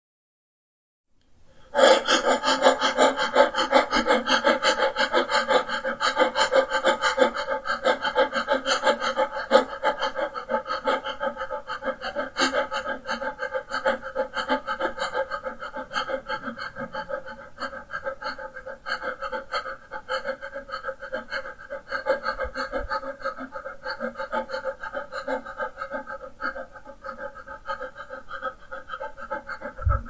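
A man breathing very fast in short, rapid breaths because he is freezing cold. The breaths begin about two seconds in and then run on without a break.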